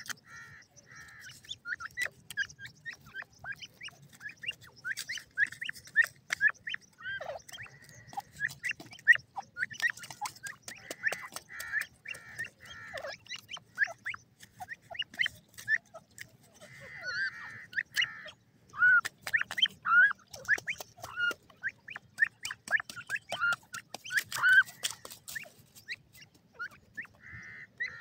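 Young grey francolins chirping continuously with short, quick contact calls, many of them falling in pitch, while feeding. Frequent sharp clicks run through the calls.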